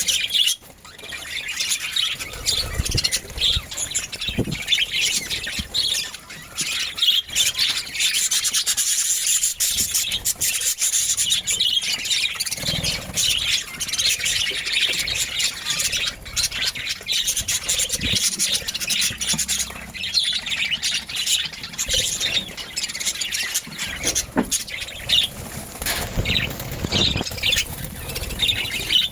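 Budgerigars chattering continuously: a dense mix of high chirps, squawks and scratchy warbling, with many small clicks.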